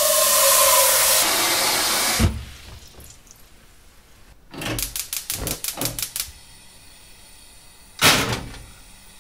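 Tap water running hard into a metal saucepan in a stainless-steel sink, cut off with a thud about two seconds in. A quick run of about eight clicks and knocks follows a couple of seconds later, then a single loud clunk of the pot set down on the gas stove's grate near the end.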